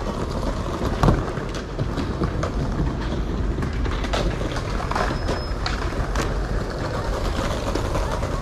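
Skateboard wheels rumbling over paving, with scattered clacks and knocks of boards; the sharpest knock comes about a second in.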